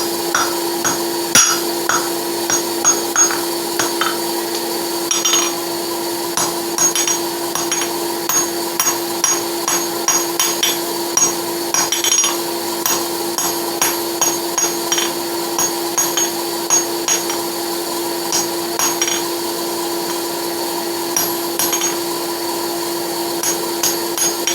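Hand hammer striking a hot horseshoe on the anvil, drawing a taper on its end, in irregular runs of blows with short pauses. A steady hum from an electric forge blower runs underneath.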